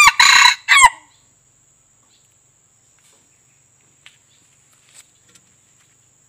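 A red junglefowl rooster (the white-eared form) crowing: the loud end of one short crow that stops within the first second, its last note falling in pitch. Then faint scattered clicks over a thin, steady, high-pitched whine.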